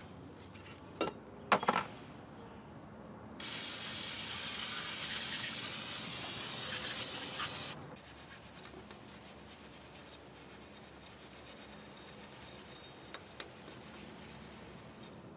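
Wire brush scrubbing rust off a rear wheel hub: a faint, scratchy rubbing. There are two sharp knocks about a second in, and a loud steady hiss for about four seconds in the middle that stops abruptly.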